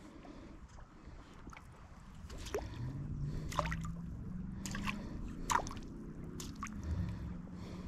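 Water splashing and plopping at the surface in a string of short drips and splashes, from about two and a half seconds in, over a low steady rumble.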